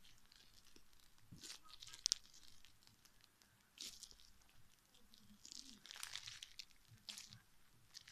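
Slime being stirred and mixed in a bowl: faint, irregular crackles and rustles, with one sharp click about two seconds in.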